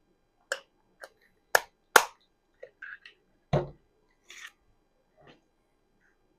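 Hard plastic clicks and knocks from handling the plastic dog water bottle, its parts snapping and tapping, about five sharp ones with a few soft scrapes between.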